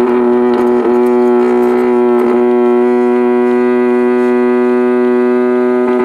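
Bucket truck's hydraulic boom system droning at one steady pitch while the bucket's upper control levers are worked.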